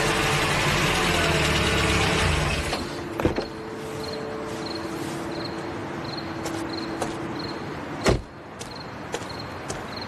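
A Mercedes-Benz SUV pulling up and stopping, its running noise dropping away after about three seconds. Then faint high chirps repeat about twice a second, and the car door slams shut about eight seconds in.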